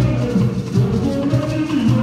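Lively gospel band music with a steady beat, percussion and a bass line that moves from note to note.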